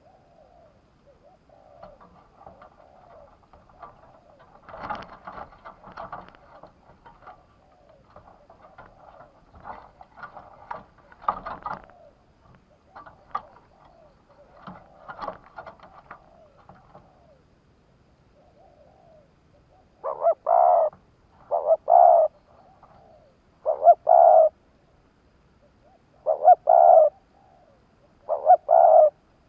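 Male spotted dove calling, the song of a caged decoy bird: soft, rambling cooing for the first half, then five loud, evenly spaced coos in the second half.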